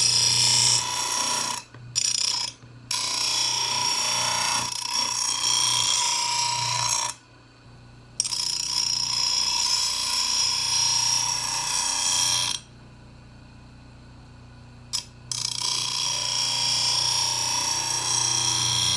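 Grinder wheel grinding the steel edge of a lawnmower blade in long passes, a harsh high grinding that cuts out whenever the blade is lifted off: briefly twice in the first three seconds, then for about a second near seven seconds and for about three seconds past the middle. Under it and through the gaps the grinder's motor keeps up a low steady hum. The passes are re-forming an edge that was smashed up.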